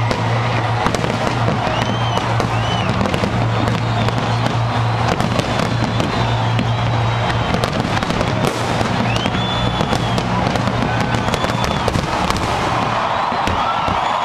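Fireworks bursting and crackling in a dense, continuous barrage, with a few short whistles, over music and crowd noise.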